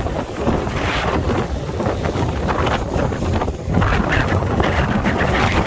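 Strong storm wind buffeting the microphone in gusts: a loud low rumble with rushing surges that rise and fall.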